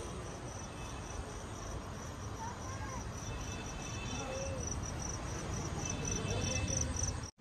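A cricket chirping: a steady run of short, high pulses, about four a second, growing louder toward the end, over faint distant voices and a low rumble. The sound cuts off suddenly just before the end.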